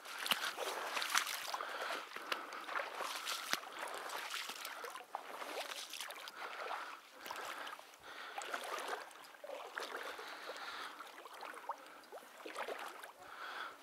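Water sloshing and splashing with many small irregular crackles as a person wades through shallow marsh water.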